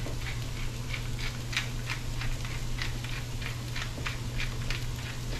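Hand-twisted pepper mill grinding black pepper, clicking about three times a second as it is turned.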